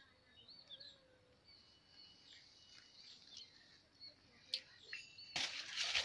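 Faint chirps and short calls of small birds, then about five seconds in a sudden loud rustling of grass and dry nest material as a hand reaches in toward the eggs.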